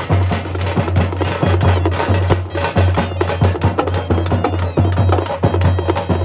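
Periya melam folk drum ensemble playing: large double-headed drums and smaller hand-held drums beating a dense, driving rhythm of many strokes a second.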